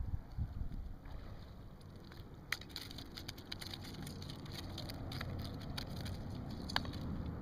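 Low steady rumble of wind and water, with a string of sharp irregular clicks and ticks from about two and a half seconds in; the loudest come near the start of the run and near its end.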